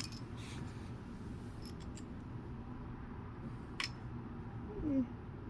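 Small plastic Lego pieces being handled and clicked into place: a few light clicks around two seconds in and one sharp click near four seconds. Near the end a brief falling squeak.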